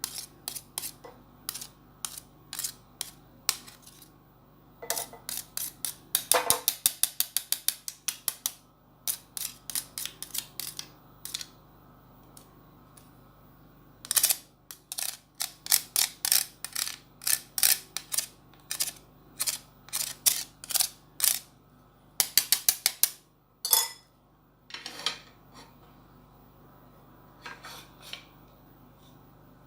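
Metal kitchen utensils and a grater clicking and tapping against a plate in irregular quick runs, with quiet gaps between them.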